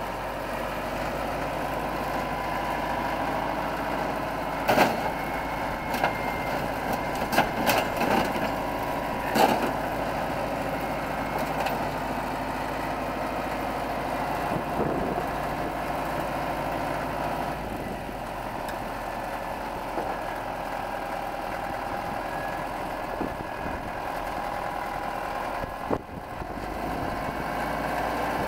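Diesel engine of a crawler loader running steadily at idle, with scattered sharp knocks, most of them between about five and ten seconds in.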